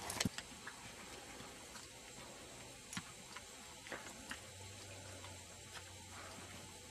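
The last few hoofbeats of a horse cantering on turf, then a faint steady hiss with a few scattered soft clicks.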